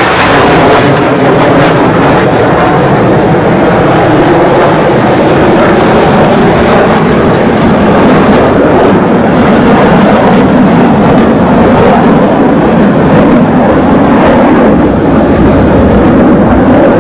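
Loud, steady roar of jet aircraft flying over.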